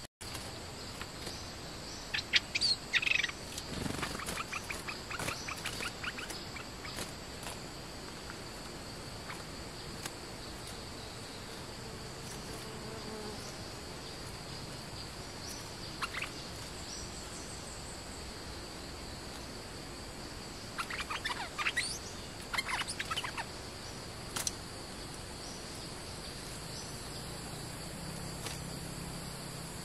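A steady drone of forest insects with high, even tones, broken by bulbul calls in short chattering bursts: a run of them a couple of seconds in, a single one midway, and another cluster a little past twenty seconds.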